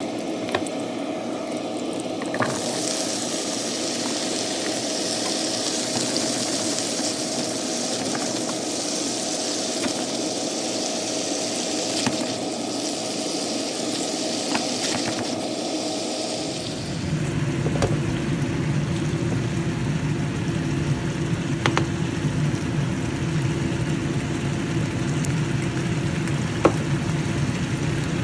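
Food frying and simmering in a nonstick pan: a steady sizzling hiss over a steady hum, with a few light clicks of a utensil against the pan. About 17 seconds in the sound changes abruptly to a lower, fuller simmer.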